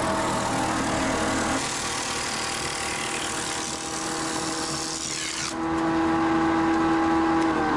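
Log-notching machine working a rounded log: the electric motor hums steadily while the cutter rasps through the wood. About five and a half seconds in the high rasping hiss stops and a steady, louder motor tone takes over.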